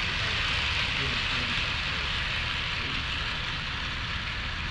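HO scale model train running on the layout: a steady rolling hiss of wheels on track, with faint voices of people in the background.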